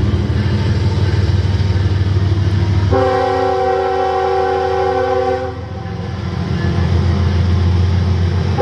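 A train rumbling past with a deep engine drone. About three seconds in, its air horn sounds a steady multi-note chord for two to three seconds, then sounds again near the end.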